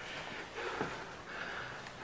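A person breathing hard close to the microphone, in short repeated puffs.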